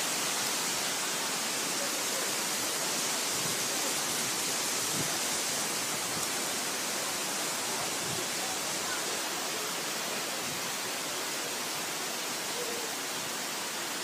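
Steady rushing hiss of falling water from the Bigar waterfall, even and unbroken throughout.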